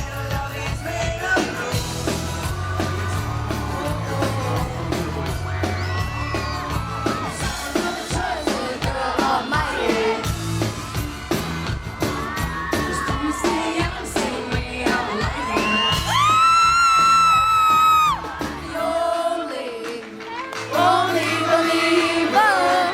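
Live pop band playing with male voices singing through a PA, heard from the crowd with fans whooping and yelling. About two-thirds through, a loud high voice holds one long note.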